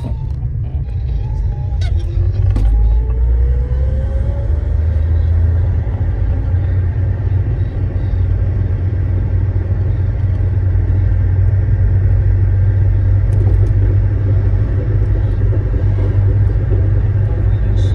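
Toyota Carina on the move, heard from inside the cabin: a steady low rumble of engine and road. The engine note rises about two to four seconds in as the car accelerates.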